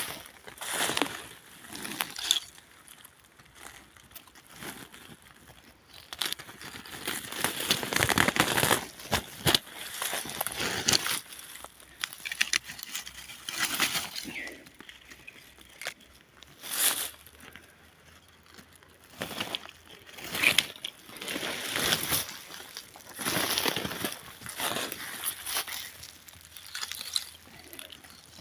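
Dry pine needles and forest litter crunching and rustling in irregular bursts every few seconds.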